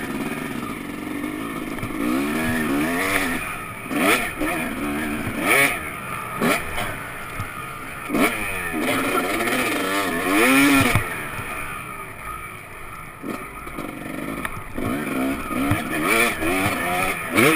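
Dirt bike engine revving up and falling back again and again as it is ridden round a motocross track, with a few short knocks.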